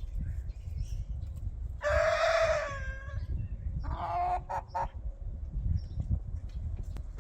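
A rooster crowing in two loud pitched parts, about two seconds in and again about a second later, over a steady low rumble.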